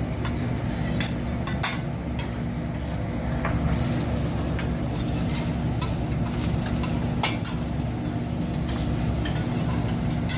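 Noodles and rice sizzling on a hibachi griddle while metal spatulas scrape across it and clink against the iron now and then, over a steady low hum.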